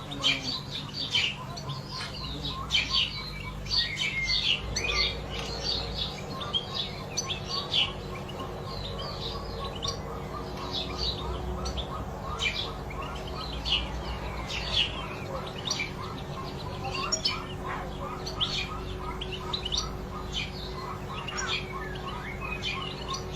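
European goldfinch singing: a long run of quick twittering chirps and trills, over a steady low hum.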